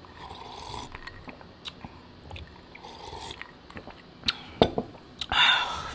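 Close-up eating and drinking mouth sounds: sipping from a glass of an iced drink and chewing, with a few sharp clicks and a breathy sound near the end.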